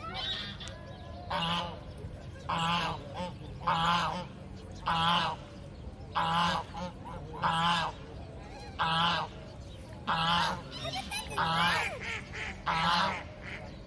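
Domestic goose honking over and over at an even pace, about one honk a second, each honk short with a wavering pitch.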